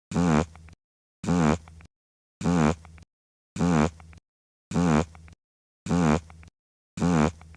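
Fart sound effect: the same short fart with a wavering pitch played seven times, about once a second, each one ending in a short quieter sputter and then dead silence.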